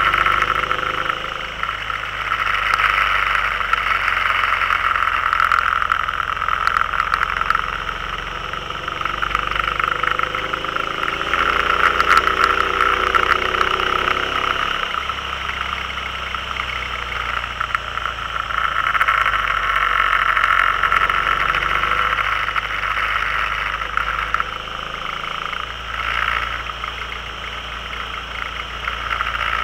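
Can-Am Spyder riding along a winding road: its engine runs with the pitch rising and falling as the throttle opens and closes, under a steady rush of wind and road noise.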